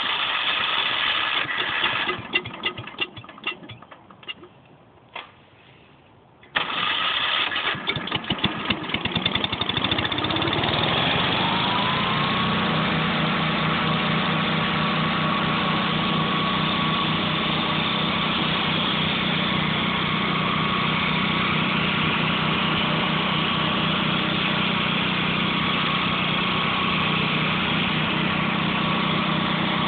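1966 Gravely walk-behind tractor's engine with rotary mower deck: it runs unevenly and dies away over a few seconds, then catches again suddenly about six and a half seconds in. It rises in pitch as it speeds up and settles into a steady, even run at working speed for the rest of the time.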